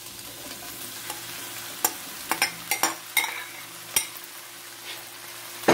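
Frying pan sizzling steadily as large white choclo corn kernels are tipped in from a bowl, with scattered sharp clicks and knocks as they land, the loudest at the very end.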